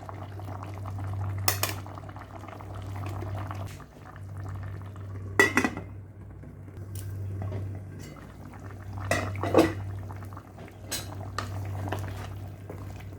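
A spoon knocking and scraping against a cooking pot in several separate clatters as the pot is stirred, over a steady low hum.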